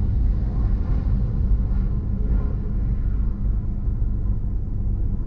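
Low rumble of a departing Boeing 777-200's twin GE90 engines after takeoff, slowly fading as the airliner climbs away, its higher hiss dying out over the last seconds.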